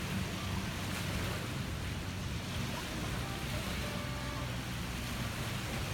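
Lake surf washing steadily onto a sandy beach, mixed with wind buffeting the microphone.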